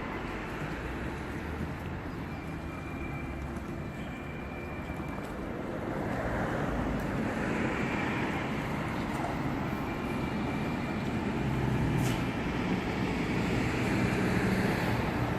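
Outdoor street background dominated by passing road traffic, swelling louder about six seconds in and again near the end.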